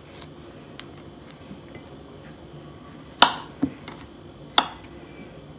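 Kitchen knife cutting through a peeled banana and knocking on a plastic cutting board: two sharp knocks a little over a second apart, with a smaller tap between them. Before that, faint soft clicks of banana peel being pulled away.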